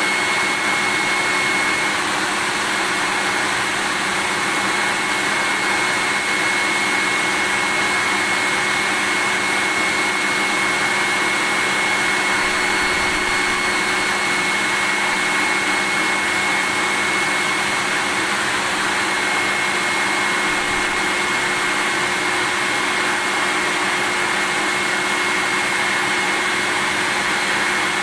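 Vacuum cleaner running steadily. It makes an unbroken whooshing hiss with a thin, constant high whine, and it never changes in level.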